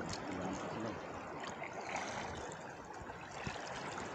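Sea water sloshing and splashing steadily around people wading waist-deep through it.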